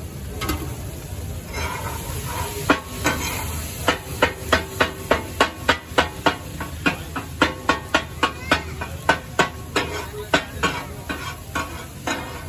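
Metal spatula striking and scraping a large flat tawa griddle as fried fish is chopped and tossed for katakat, a rhythmic clatter that settles to about three strikes a second from about four seconds in, over a faint sizzle.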